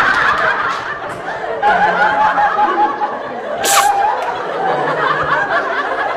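People laughing and giggling just after a sneeze, with a brief sharp hiss a little past halfway.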